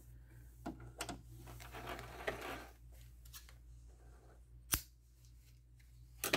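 Sewing fabric being drawn out from under a stopped sewing machine's presser foot, with soft rustling and a few light clicks, then one sharp snip about four and three-quarter seconds in as the trailing threads are cut.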